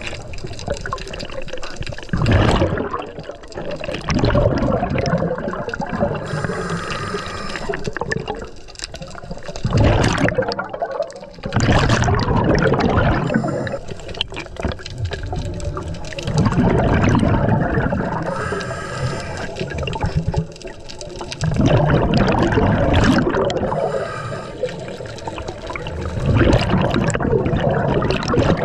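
Scuba breathing through a regulator underwater: a gurgling rush of exhaled bubbles comes back about every four to five seconds, with quieter hissing stretches between.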